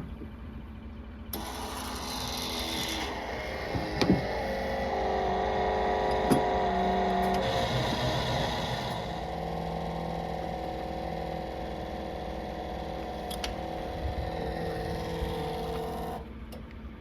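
Skid steer engine starting, running with its pitch shifting up and down a few times, then shutting off near the end.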